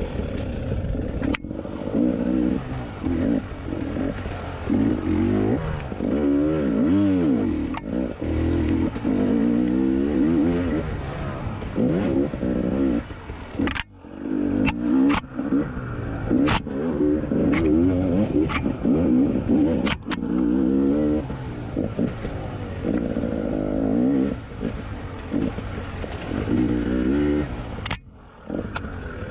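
KTM 300 XC TPI single-cylinder two-stroke dirt bike engine revving up and down over and over on technical trail riding, with several sharp knocks. The engine note drops away briefly about halfway through and again near the end.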